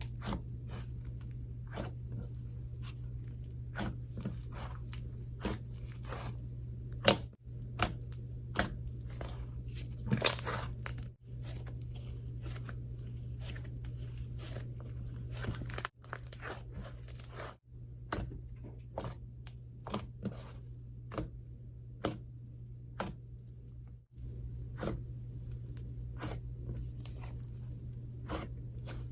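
Icy slime being played with, giving irregular crunchy crackles and small pops, with a steady low hum underneath.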